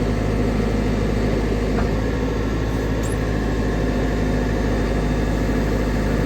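Caterpillar 420 backhoe loader's diesel engine running steadily at a constant speed.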